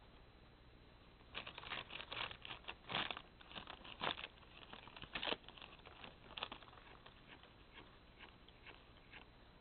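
Cat licking a thin plastic bag: quick, crackling crinkles of tongue and mouth working the plastic, starting about a second in, densest and loudest over the next few seconds, then thinning to scattered ticks before stopping near the end.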